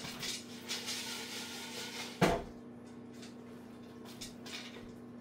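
Lidded stockpot of popping popcorn shaken on a gas burner, the kernels rattling inside, then set back down on the grate with a loud clunk a little over two seconds in; a few scattered pops follow.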